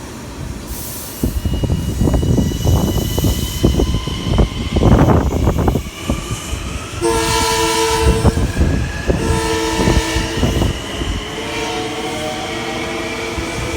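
LIRR M9 electric train pulling away: a run of loud irregular pops and crackles from the third-rail shoes arcing on the wet rail, then two blasts of the train's horn, each about a second long, with the traction motors' whine rising in pitch as it gathers speed.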